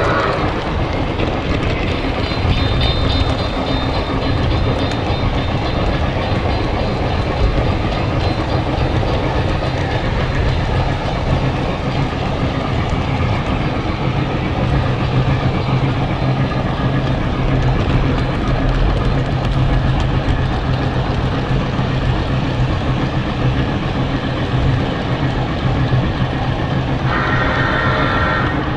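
Train running past: a steady rumble with a low engine hum and wheels clacking on the rails. A short higher tone sounds just before the end.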